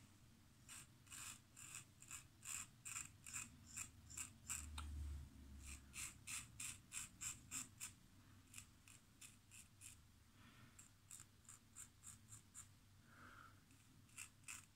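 GEM 1912 single-edge safety razor scraping through lathered stubble in short, quick strokes, about three a second, faint. A little past the middle the strokes grow lighter and sparser, then stop briefly near the end.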